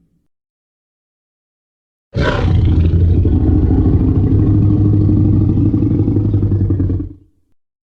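Tyrannosaurus rex roar sound effect: silence, then about two seconds in a single low-pitched roar starts suddenly, holds for about five seconds and fades out.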